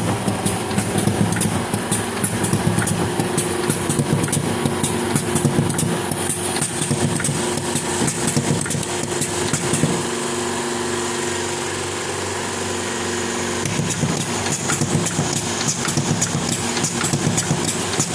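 Small engine of a Goldone Speed 15 machine running with a rough, choppy note. Just past the middle it settles into a smoother, steadier run for about four seconds, then goes back to the rougher running.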